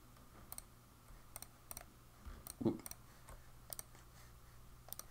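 Faint computer mouse clicks at an uneven pace, about two a second, as counties on an on-screen map are clicked one by one. About halfway through there is a brief low hum from a voice.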